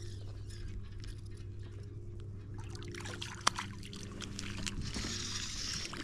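A hooked crappie splashing and thrashing at the water's surface beside a boat, with the splashing heaviest near the end, over a steady low hum. A single sharp click comes about three and a half seconds in.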